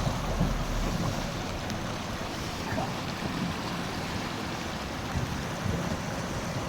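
Steady rushing noise of heavy rain and water on a flooded road, heard from inside a moving 4x4 pickup truck, with a low rumble underneath.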